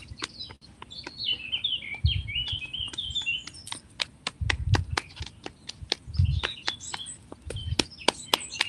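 Fists tapping quickly and rhythmically on the buttocks and thighs through clothing, about three or four light taps a second, with a few duller thumps among them. Small birds chirp over the tapping.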